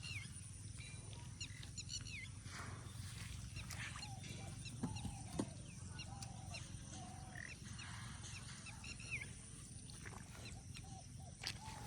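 Birds chirping and whistling, many short curved calls over a steady low rumble, with a couple of sharp knocks about halfway through.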